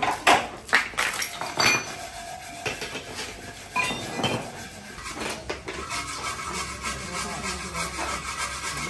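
Heavy steel chain and hand tools clinking and clanking against the car's steel frame as a frame-straightening pull is rigged. There are several sharp metal knocks in the first two seconds and again about four seconds in, then lighter clatter.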